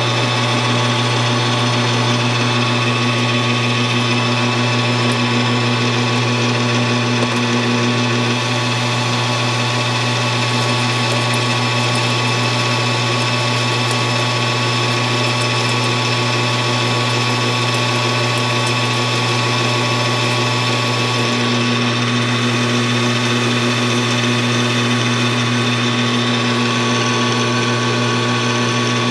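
Metal lathe running steadily under power, its spindle drive giving a constant low hum with a high whine over it, while the cutting tool turns down the diameter of a small steel lifter for a model radial engine.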